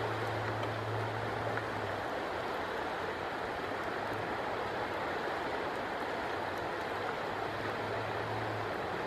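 Steady rush of a flowing river. A low steady hum sits under it, fading out about two seconds in and coming back for a while near the end.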